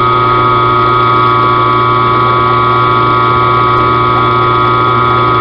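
Benchtop mill-drill running, its 3/8-inch end mill slowly cutting a square-thread auger groove into metal barstock: a loud, steady motor whine of several high held tones over a low hum.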